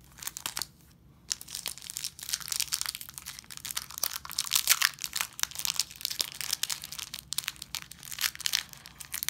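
Foil wrapper of a Pokémon Shining Fates booster pack crinkling and crackling as it is handled and worked open by hand, starting about a second in.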